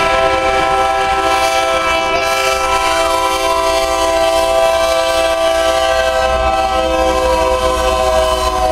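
Diesel locomotive's air horn held in one long, steady chord as the train approaches the grade crossing, sounding its warning. A low rumble from the locomotive grows under it near the end.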